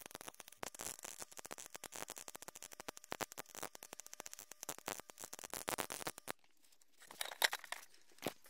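Welding arc crackling in dense, irregular bursts. It cuts out a little after six seconds in and strikes again about a second later with a louder burst.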